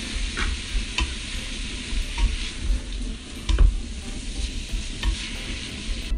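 Chicken and shrimp sizzling steadily in hot oil as they are stir-fried, the spatula clicking and scraping against the pan every so often, with one heavier knock about three and a half seconds in.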